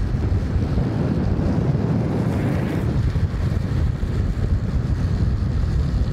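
Wind buffeting the microphone at speed over a steady low rumble of longboard wheels rolling down asphalt.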